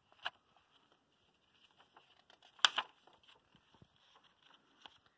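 Pages of a paperback picture book being handled and turned: soft paper rustles and small ticks, with a sharper double flap about two and a half seconds in.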